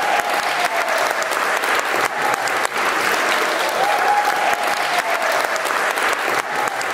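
A small audience applauding, with dense, irregular hand claps throughout.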